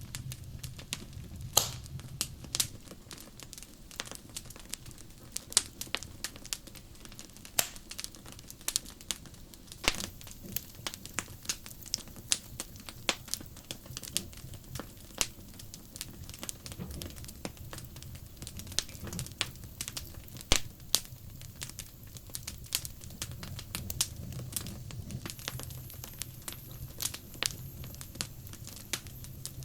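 Wood fire crackling: burning logs giving off frequent irregular sharp snaps and pops, some much louder than others, over a low steady rumble.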